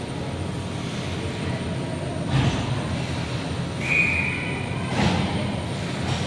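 Ice rink ambience during a ringette game: a steady low rumble, with two sharp knocks and a short high tone of under a second between them.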